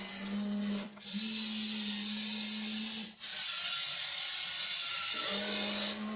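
WLtoys RC excavator's small electric motors whining as it works. They cut out briefly about a second in and again about three seconds in, and the pitch changes as different functions run.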